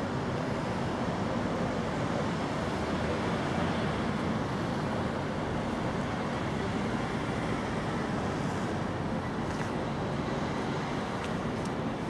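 Steady outdoor town ambience: an even, constant rumble of background noise with no distinct events.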